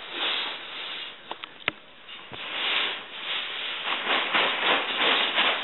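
Nylon dome-tent fabric rustling and swishing as it is lifted and handled, busier and louder in the second half, with two sharp clicks about a second and a half in.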